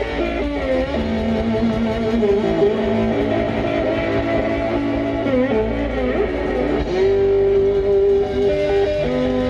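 A live blues band plays an instrumental passage. An electric guitar takes the lead with long held, bent notes over bass guitar and drums.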